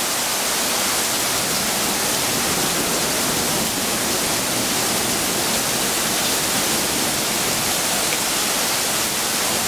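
Torrential rain pouring down in a dense, even hiss that holds steady throughout.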